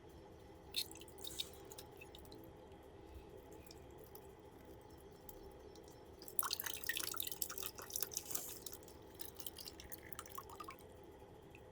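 Rubber balloon being squeezed and handled: a couple of sharp clicks about a second in, then a run of quick, wet-sounding crackling and squishing clicks from about halfway through until near the end, over a faint steady hum.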